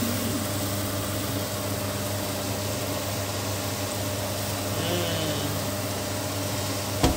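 Stir-fry cooking in a wok: a steady sizzle over a low hum while a silicone spatula turns the pork, quail eggs and vegetables. A few sharp knocks come right at the end as the spatula strikes the wok.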